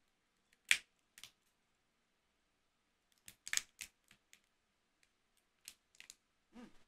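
Scattered sharp cracks and clicks of a cooked lobster shell being pried apart by hand close to the microphone: one loud crack about a second in, a quick run of cracks around the middle, and a few lighter clicks near the end.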